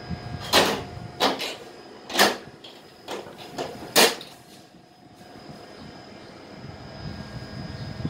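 Plastic front panel of a Panasonic CS-PC5MKJ split air conditioner indoor unit being handled and shut, giving about seven sharp clacks and knocks in the first four seconds. Under them is the running unit's steady hum.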